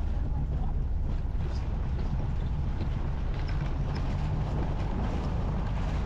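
Volkswagen Fusca (Beetle) on the move: a steady low engine drone with road noise, and some wind on the microphone.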